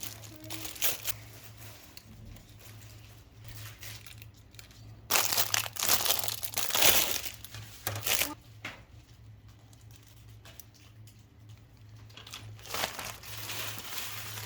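Plastic packaging being crinkled and torn open by hand. The rustling is loudest in a burst from about five to eight seconds in, with lighter crinkling near the end.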